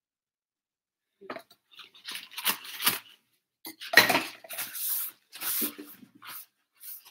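Kitchen items being moved and set down on a counter: clinks, knocks and rustling that start about a second in, with one sharp knock about four seconds in.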